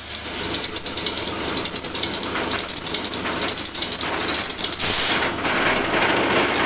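Large 20-cylinder diesel engine running, recorded close up: a dense, rapid mechanical clatter over a low rumble. A steady high whine runs with it and stops about five seconds in.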